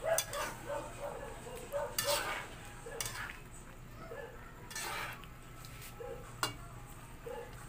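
Metal spatula scraping and clicking against a frying pan as pieces of braised pork in sauce are stirred and turned, in a few separate strokes.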